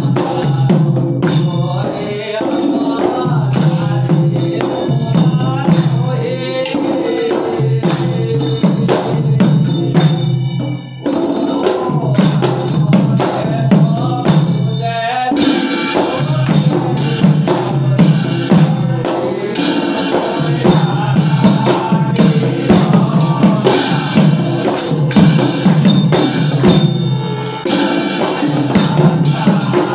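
Negera Naam: a pair of rope-laced negera drums beaten with sticks in a fast, steady rhythm, with large hand cymbals clashing and a group of men singing a devotional chant together. The music dips briefly about a third of the way in.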